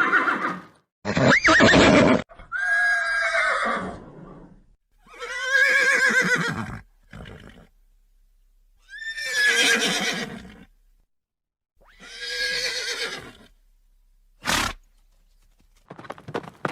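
Horses whinnying: about five separate neighs, each a second or two long with quiet gaps between, their pitch rising and then falling. A short sharp sound comes near the end, then rapid hoof clip-clop starts just before the close.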